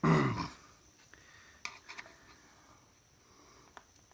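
Hard parts being handled while a device is taken apart by hand: a loud knock at the start, a few light clicks, and a sharp click at the end.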